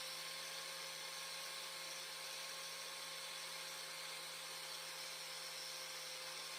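Angle grinder fitted with a Scotch-Brite wheel, running at steady full speed with an even whine while it lightly buffs an aluminum tool casing.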